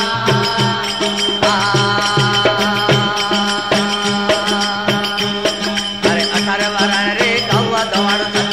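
Instrumental passage of a Rajasthani Marwari desi bhajan: a melody of sustained notes over a steady drum beat, about two low strokes a second, with light percussion strokes in between.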